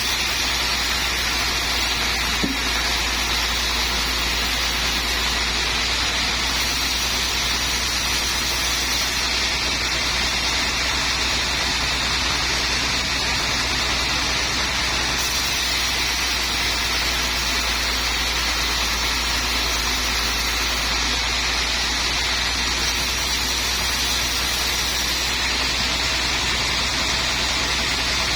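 Sawmill machinery running steadily: a constant low motor hum under an even hiss, with no breaks or changes.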